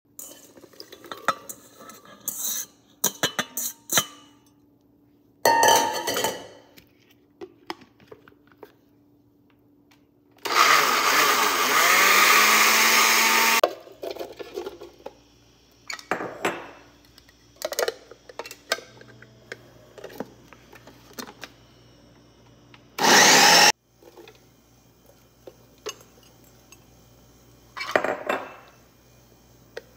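Food processor motor running for about three seconds partway through, rising in pitch as it spins up, then a short pulse later on, chopping vegetable chunks. In between come clicks and clunks of the plastic bowl and lid being handled and pieces dropped in.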